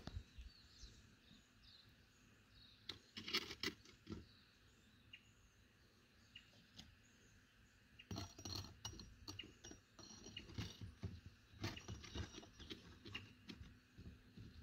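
Light knocks and scrapes of a concrete block being handled and set as a lid on top of a small concrete block furnace, a few around three seconds in and a dense run from about eight seconds in. Faint bird chirps sound in the quiet stretches.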